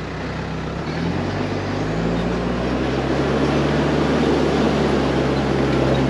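Four-wheel-drive vehicle's engine running at low revs on a rough off-road track. Its pitch shifts about one and two seconds in, under a steady rushing noise.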